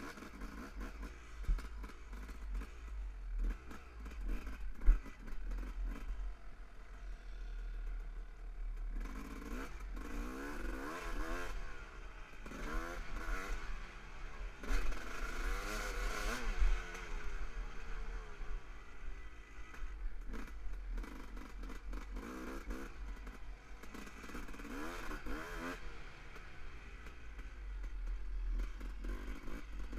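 Dirt bike engine revving up and down as it is ridden, its pitch repeatedly rising and falling as the throttle opens and closes and the gears change. A steady low rumble runs underneath, with a couple of sharp knocks in the first few seconds.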